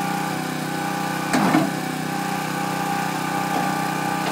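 An engine running steadily at an even speed, with a brief louder noise about a second and a half in.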